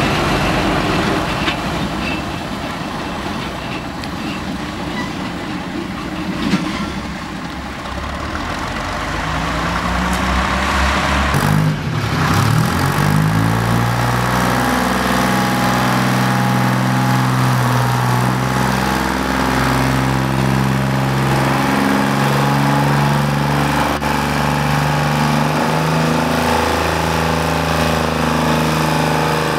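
Small diesel switcher locomotive's engine running as it moves along the track. About twelve seconds in, the sound changes abruptly to a Michigan wheel loader's diesel engine running steadily, with a strong even engine hum.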